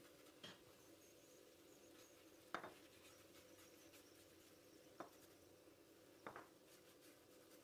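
Faint handling sounds: a silicone pastry brush spreading oil over spinach gözleme in a nonstick frying pan, with four short soft taps, the loudest about two and a half seconds in, over a low steady hum.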